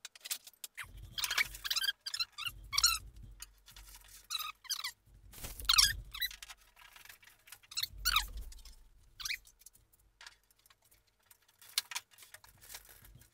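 Metal wing tubes squeaking and scraping as they are slid and twisted in the tube sleeves of a composite RC jet fuselage, in a series of short squeaks with dull knocks from handling. The loudest squeak comes about six seconds in.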